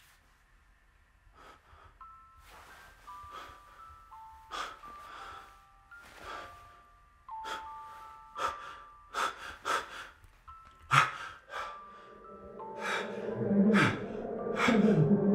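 Sparse, eerie music of held notes that change in steps, over a young man's sharp, irregular breaths and gasps. The breathing grows louder and heavier in the last few seconds, as if in panic.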